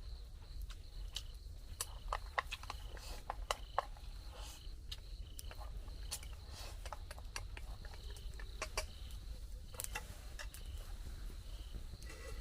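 Insects, likely crickets, chirring steadily on one high tone, with many scattered irregular ticks and taps over a low rumble.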